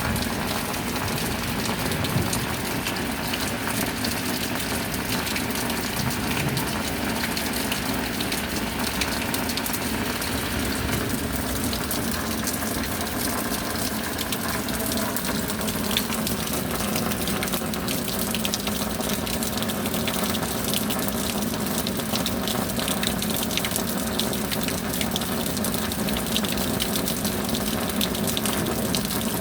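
Steady rain: an even rush of falling water with many small drop ticks.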